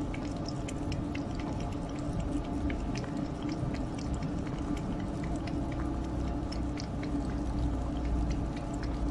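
A cat lapping liquid from an open metal food tin, making many small wet clicks, over a steady low hum.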